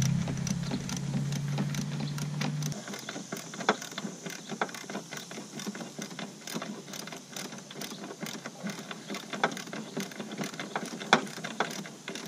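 Ratchet wrench clicking irregularly as the brake master cylinder's mounting nuts are tightened down past hand tight. A low steady hum underneath stops abruptly about three seconds in.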